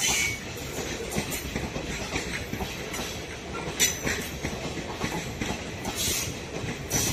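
Indian Railways passenger train's coaches rolling past: a steady rumble of wheels on rail, broken by a few sharp clanks of wheels over rail joints, the loudest almost four seconds in.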